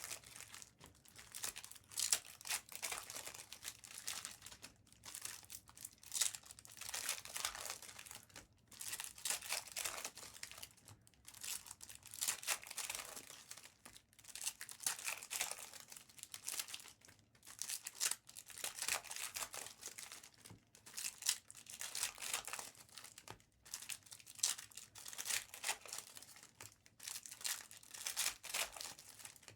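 Topps Chrome football card packs from blaster boxes being torn open, their wrappers crinkling in irregular rustling runs with short pauses between them.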